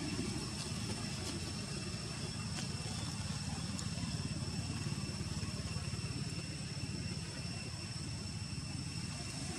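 Steady low outdoor background rumble with faint, steady high-pitched tones above it and a few faint clicks.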